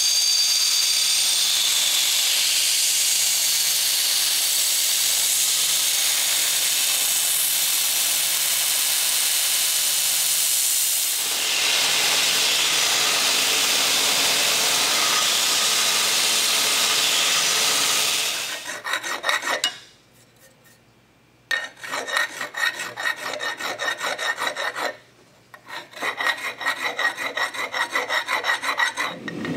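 Belt grinder running with a mild-steel trowel blade pressed against the moving belt, a steady loud hiss. About eighteen seconds in it gives way to a hand file worked back and forth over the blade's steel edge in quick repeated strokes, pausing twice.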